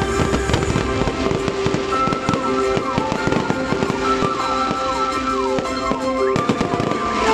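Aerial fireworks bursting in quick succession, many sharp bangs and crackles a second, with music playing alongside.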